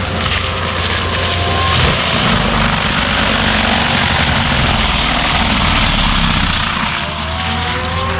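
Skid steer with a forestry mulcher head working brush and trees: diesel engine running under load, with the spinning mulcher drum making a loud, steady rushing din over it.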